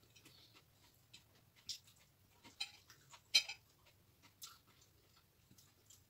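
Forks and knives clicking and scraping on plates during a meal: about five short, scattered clicks, the loudest about halfway through.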